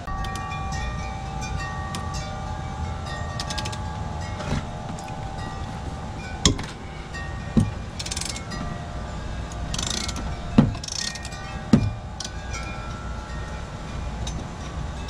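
A socket ratchet clicking in short runs as mower blade bolts are loosened, with four sharp metal knocks in the second half. Wind chimes ring at several pitches in the background, mostly in the first half.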